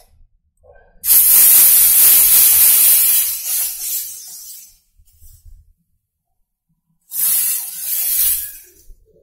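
Wet roti batter sizzling on a very hot griddle as it is spooned on. A loud hiss starts about a second in and fades over some three seconds, and a second, shorter sizzle comes about seven seconds in as more batter goes on.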